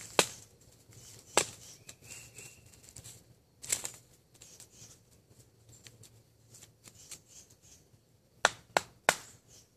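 Sharp wooden knocks of a baton stick striking the spine of a bushcraft knife set into a piece of pine, driving the blade down to split the wood. Single knocks a second or two apart at first, then three in quick succession near the end.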